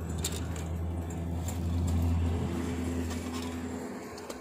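Low, steady engine drone of a nearby motor vehicle, swelling to its loudest about two seconds in and then fading away, with a few faint clicks.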